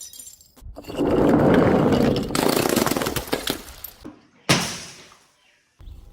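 Glass breaking and shattering in a series of separate crashes, each starting suddenly. The last is a sharp crash about four and a half seconds in that fades out over a second.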